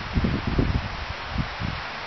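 Wind buffeting the microphone in uneven low gusts over a steady windy rustle.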